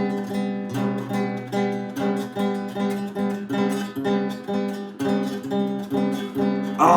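Acoustic guitar strummed in a steady rhythm, about two strums a second, repeating the same chords, with no voice.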